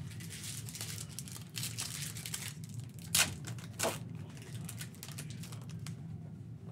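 Panini Donruss basketball card pack wrapper crinkling as it is handled, then torn open with two short loud rips about three seconds in, followed by softer rustling as the cards come out. A steady low hum runs underneath.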